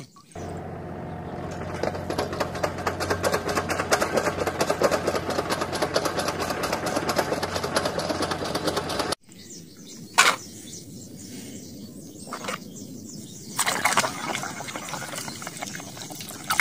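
A Hino FM 260 tanker truck's diesel engine running steadily with a fast ticking clatter, cutting off suddenly about nine seconds in. Then muddy water sloshing and splashing in a plastic basin as a hand scrubs in it, with a few louder splashes.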